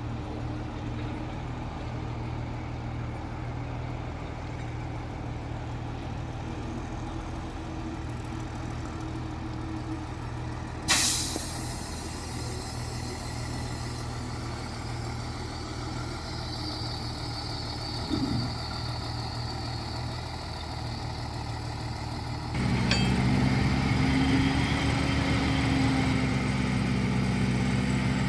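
Heavy diesel earthmoving machinery running steadily, with a sudden sharp burst of noise about eleven seconds in. Near the end the engine note steps up and gets louder.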